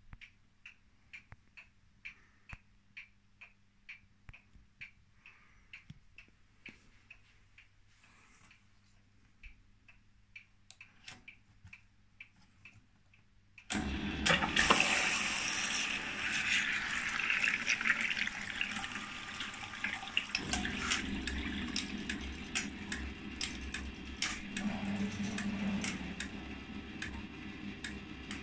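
1968 Scharpf Elektronica 2920 washing machine ticking lightly about twice a second, then, about halfway through, water suddenly starts rushing in as the machine fills. A few seconds later the rushing gets deeper and heavier.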